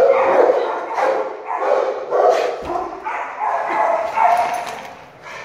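Dog barking repeatedly in a shelter's kennel hallway, about one or two barks a second, dying down near the end.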